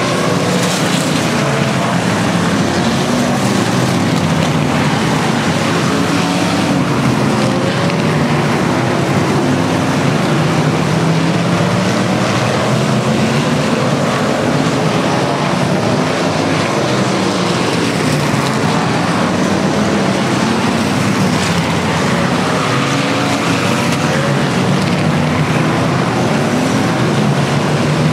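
A pack of dirt-track sport modified race cars running at speed, their V8 engines a loud continuous drone. Several engine notes rise and fall as the cars go round the track.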